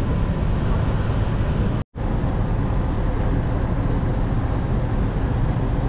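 Steady loud rumble of a ferry underway, with wind buffeting the microphone; it cuts out for a moment about two seconds in.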